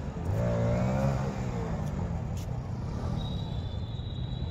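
Motorcycle engine revving once, the pitch rising and then falling over about a second and a half, over a steady low rumble. A thin, high, steady tone sounds in the second half.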